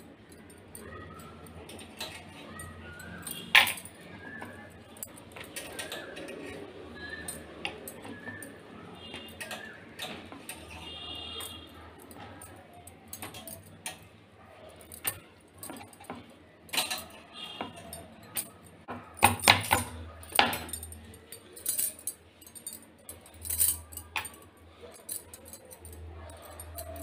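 Irregular clinks, taps and knocks of dough being worked by hand with a rolling pin on a board. A few sharp, louder knocks stand out.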